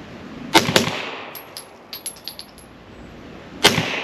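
Suppressed 9mm Glock pistol firing 147-grain rounds in quick pairs, two shots about a fifth of a second apart about half a second in, and another pair near the end: the pistol is doubling, firing twice in quick succession, which the shooter finds weird. Light metallic clinks sound between the pairs.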